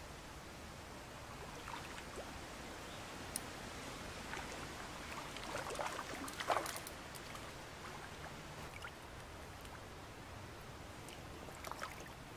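River water flowing steadily, with splashes from a hooked trout thrashing at the surface, the loudest cluster about six to seven seconds in and a few smaller splashes elsewhere.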